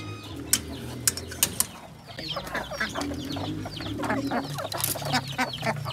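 Backyard chickens clucking, with a few sharp clicks in the first two seconds and then a run of many short, high calls from about two seconds in.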